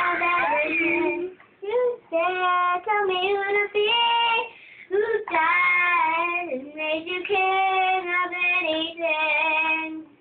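A child singing with no accompaniment, in phrases of long held notes at a fairly steady pitch, with short breaks for breath between them.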